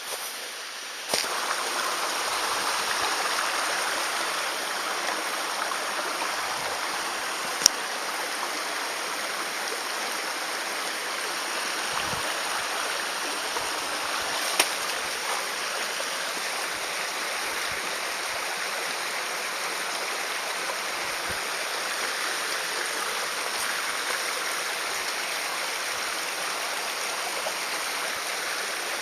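Mountain stream rushing steadily: an even water noise that rises about a second in and holds level, with two sharp clicks partway through.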